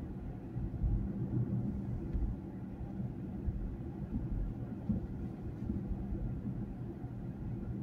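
Steady low rumble of a car driving along a road, heard from inside the cabin: engine and tyre noise with a faint steady hum.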